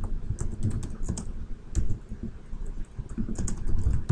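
Computer keyboard typing: a run of quick keystrokes in irregular clusters as a short command is entered.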